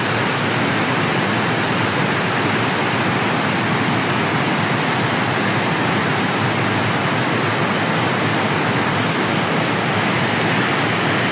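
A river in flood rushing: a loud, steady, unbroken wash of fast-moving water.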